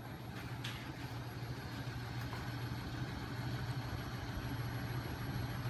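Home-built magnet motor rig running: a 12 V electric motor spinning a 5 kg flywheel and magnet crankshaft, giving a steady low mechanical hum that grows slightly louder.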